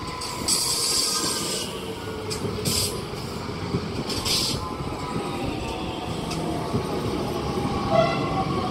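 Bombardier Talent 2 electric multiple unit running into the platform and slowing, its motor whine falling in pitch over wheel and rail rumble. Short bursts of hiss come in the first few seconds.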